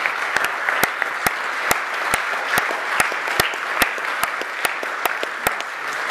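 Audience applauding, with one person near the microphone clapping steadily, a little over two claps a second, above the rest of the crowd's clapping.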